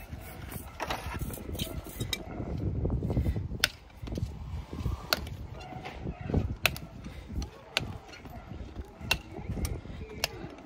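A farrier's steel hand tools working on a horse's freshly trimmed hoof: irregular sharp clicks about every second or so, over low handling noise.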